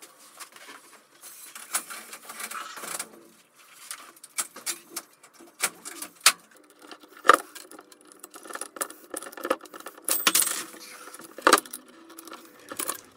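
Irregular metallic clicks, clinks and rattles as the aluminium gantry and parts of an upright CNC machine are handled, with a few sharper knocks in the second half.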